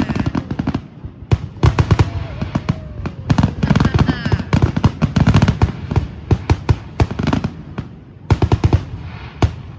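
Aerial fireworks going off in a rapid-fire barrage: many sharp bangs and crackles in quick clusters, with a few whistling shells gliding in pitch about four seconds in. The bursts thin out near the end.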